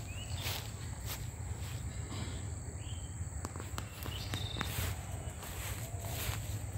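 Outdoor ambience in a garden: a steady high insect drone, the footsteps of someone walking, and a few short chirps.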